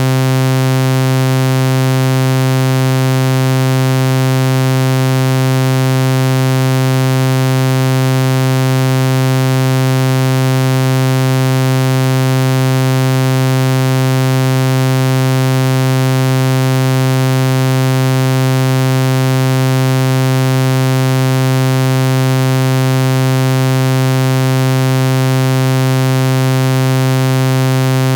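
A low, steady electronic buzzing tone held at one pitch without any change, rich in overtones.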